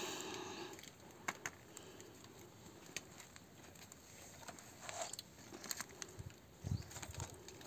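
Faint scattered clicks and small crunches of a knife slicing ripe melon and of bites into the fruit, over quiet outdoor background.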